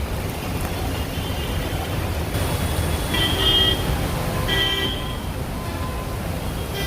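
Street traffic with a steady low rumble, and a vehicle horn honking twice, about three seconds in and again about a second and a half later.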